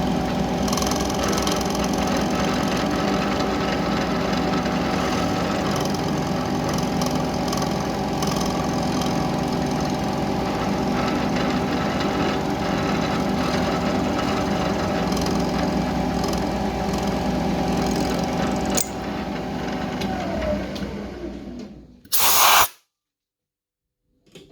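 CNC mill cutting aluminium: a steady spindle whine with cutting noise. About 19 seconds in the cut stops and the spindle winds down, its pitch falling. A short, loud burst of noise follows, then silence.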